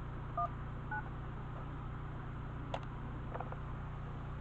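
Two short touch-tone (DTMF) keypad beeps about half a second apart as the last digits of a number are keyed on a SIP phone, followed by a few faint clicks, over a steady low hum.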